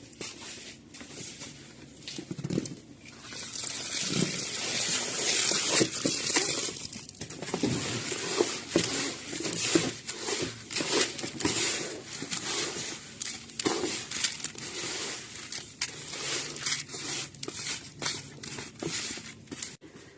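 Plastic bags and food packaging crinkling, with containers knocking and clattering as things are handled.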